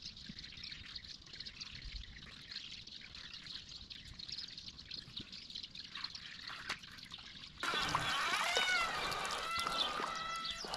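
River water trickling and lapping at the bank. About three-quarters of the way in it suddenly becomes louder and closer, and quick high chirping calls come in over it.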